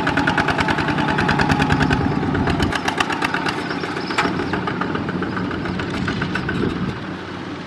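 Walk-behind two-wheel tractor's single-cylinder diesel engine chugging rapidly and steadily as it pulls a trailer loaded with rice sacks, easing slightly quieter near the end.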